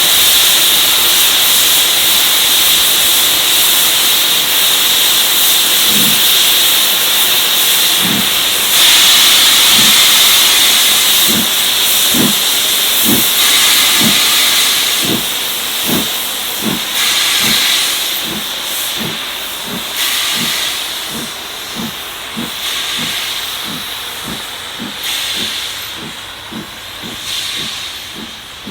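LMS Stanier Black 5 steam locomotive starting away: a steady hiss of escaping steam, then exhaust chuffs begin about six seconds in, slow at first and quickening to about two a second, growing fainter as the engine pulls away.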